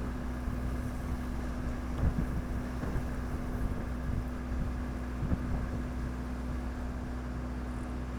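A steady low engine drone with a constant hum, with a few brief knocks, the loudest about two seconds in.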